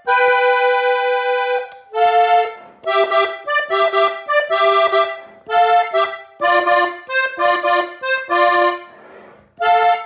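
Three-row diatonic button accordion played on its treble buttons: a chord held for about a second and a half, then a string of short melodic phrases with brief breaks between them. A pause of about half a second comes near the end before the next phrase starts.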